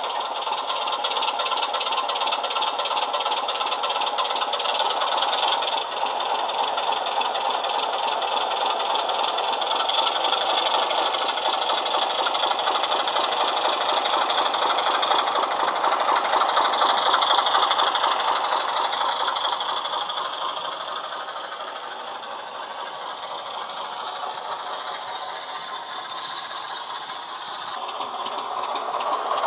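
Recorded Class 25 Sulzer diesel engine sound played by a model Class 24 locomotive's LokSound 5 DCC sound decoder through a small sugarcube speaker, running steadily with no deep bass as the model passes. It fades as the locomotive moves away and grows louder again near the end as it comes back round.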